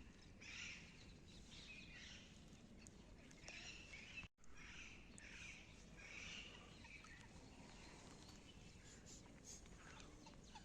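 Faint birds calling with short, repeated chirps over a low, steady outdoor background hum. The sound drops out completely for a moment about four seconds in.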